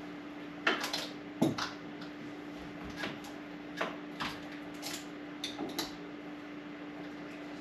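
A steady electrical hum with scattered light clicks and knocks of household objects being handled, in the first six seconds or so.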